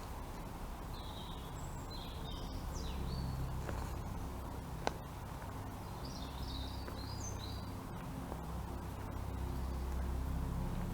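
A songbird singing two short phrases of quick, high chirping notes, the first about a second in and the second around six seconds, over a steady low outdoor rumble that swells toward the end. A single sharp click sounds near the middle.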